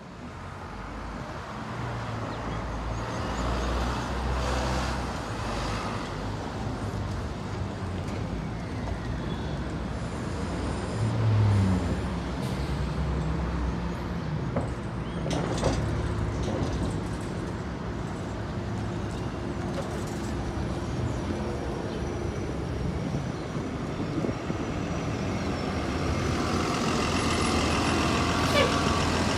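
Street traffic with city buses and cars passing. Near the end a bus's diesel engine runs close by and the sound grows louder.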